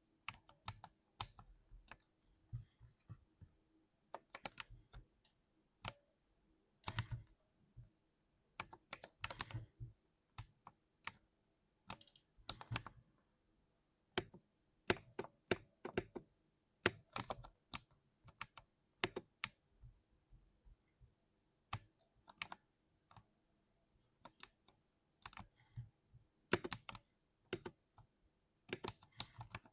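Typing on an oiled 60% mechanical keyboard: irregular runs of keystrokes with short pauses between bursts.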